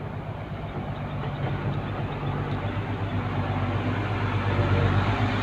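Dump truck's engine running, growing steadily louder as the truck pulls out and approaches.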